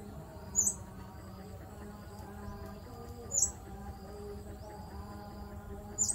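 Three short, high-pitched animal chirps about three seconds apart, over a faint steady background.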